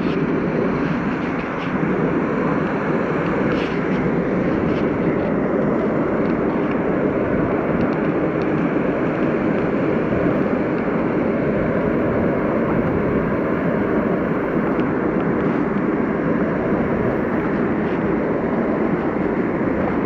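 Mountain stream running, a steady even rush of water.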